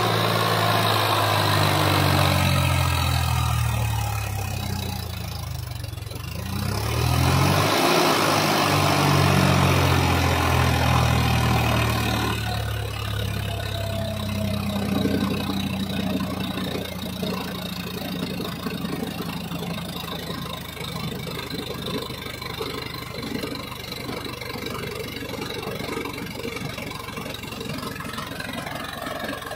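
Swaraj 963 FE 4WD tractor's diesel engine labouring as the tractor drives through deep sand. Its note sags a few seconds in, climbs again and runs loud for a few seconds, then settles lower and steadier.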